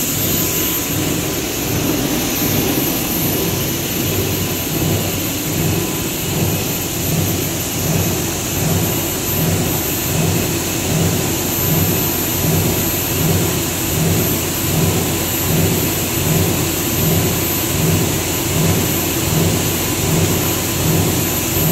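PP meltblown fabric production line running: a steady, loud machine-and-air rush with a constant high whine and a low hum that pulses about once a second.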